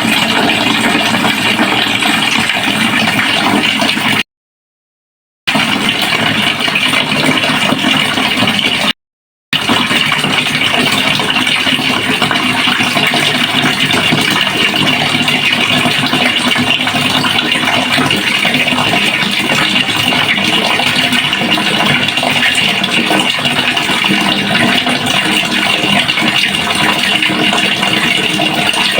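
Water running steadily into a pail, a constant rushing splash. It cuts out to dead silence twice: for about a second, about four seconds in, and briefly again at about nine seconds.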